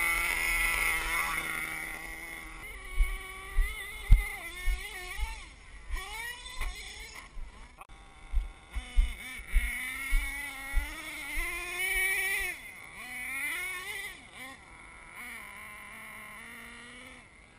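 Radio-controlled HPI Savage monster truck's motor revving up and down in pitch as the truck drives over sand and gravel. Many short low thumps run under it as the truck bounces across the rough ground.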